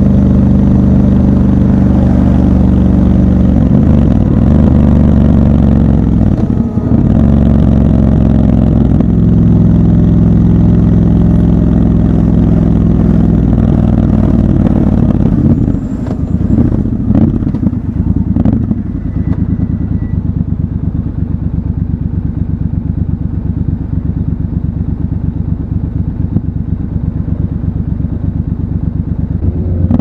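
Triumph Scrambler 1200 XC parallel-twin engine running under steady throttle at road speed, dipping briefly about a quarter of the way in. From about halfway it drops to a quieter, low, even pulse as the bike rolls slowly through stopped traffic and waits at a light, with a few clicks and clatter.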